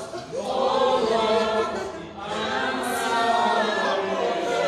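A group of voices singing a prayer chorus together without instruments, in two long sung phrases.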